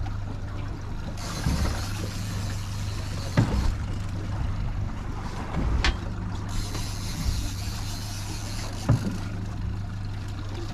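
Boat motor running steadily at idle, a low even hum. A high hiss comes in about a second in and drops away near the end, and a few short knocks sound over it.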